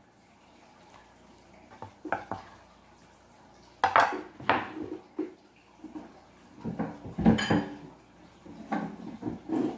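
Kitchen utensil clatter: a knife set down on a wooden cutting board, then scattered knocks and clinks of dishes and utensils on the counter, the loudest about seven seconds in.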